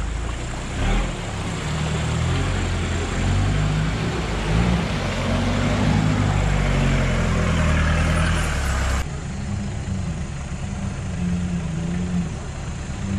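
A 4x4's engine running as it creeps through a water-filled muddy track, with a loud rush of splashing water over it. The splashing stops abruptly about nine seconds in, leaving the engine running alone and quieter.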